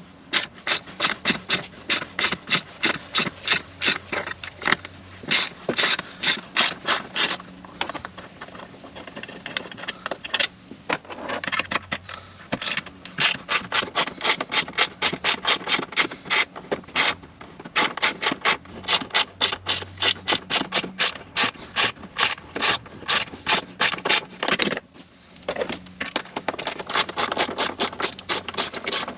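The small factory-supplied Jeep hand tool working the fasteners of the metal rear cargo sill strip in quick repeated rasping strokes, about three to four a second, with a couple of brief pauses.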